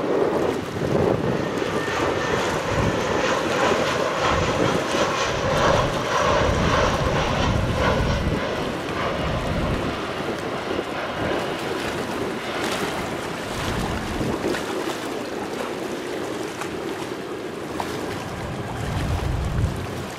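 Twin-engine jet airliner on final approach, its engines a steady rumble, louder in the first half and easing after about eight seconds. Wind gusts buffet the microphone.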